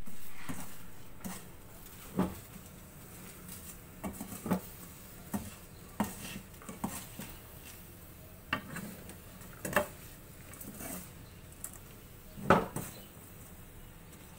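A wire-mesh strainer ladle stirring wet raw peanuts through hot salt in a black kadai, dry-roasting them. Irregular scrapes and knocks of metal on the pan come every second or two, with the nuts and salt rattling. The loudest knock is about twelve seconds in.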